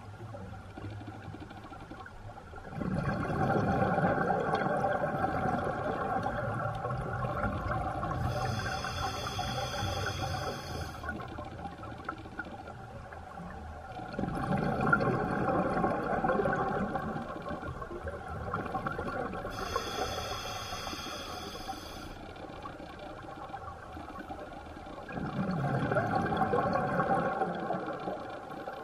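Scuba diver breathing through an open-circuit regulator underwater: slow breaths about every eleven seconds, each a hissing inhale and a long bubbling exhale, with three exhales.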